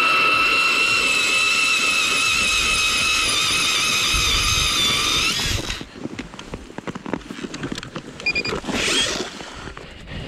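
StrikeMaster Lithium 40V battery-powered ice auger drilling a test hole through lake ice more than 8 inches thick, its motor giving a steady high whine that stops abruptly about six seconds in. Scattered knocks and scrapes follow as the auger is handled over the hole.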